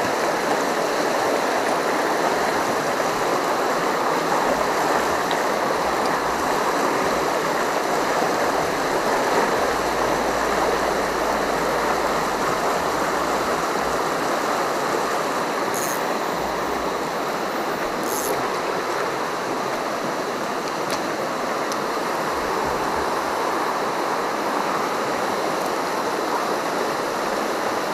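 Fast, muddy river water rushing steadily over rocks and through small rapids.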